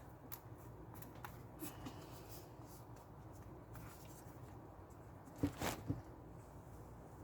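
Faint handling noises of an iPad and its replacement screen being fitted together by hand: light scattered clicks and rustles, with a short cluster of louder taps about five and a half seconds in.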